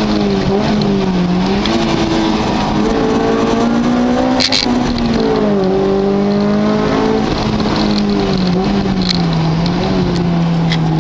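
Car engine driven hard on a race circuit, its pitch climbing and falling with throttle and gear changes, with a sudden drop like an upshift a little over halfway through. A short sharp click sounds about four and a half seconds in.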